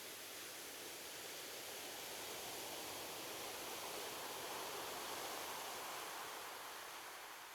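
Ocean surf washing on a beach: a steady hiss of breaking water that swells about halfway through and begins to fade near the end.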